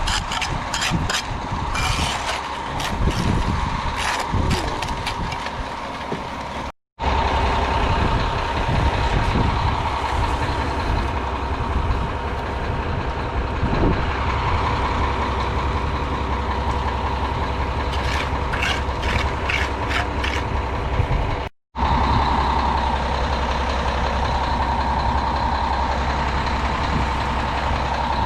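Concrete mixer truck's engine running steadily, with a constant whine over a low rumble. Scattered sharp rattles come in the first several seconds, and the sound cuts out abruptly twice.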